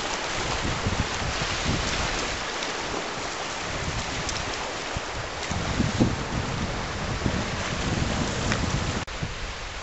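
Wind gusting against the microphone over a steady hiss of sea washing on the rocky shore. The sound breaks off briefly about nine seconds in and comes back a little quieter.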